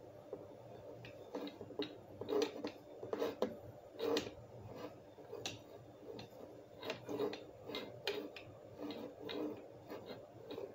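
Handling noise: irregular soft clicks and light rubbing close to the microphone, a few each second, over a faint steady hum.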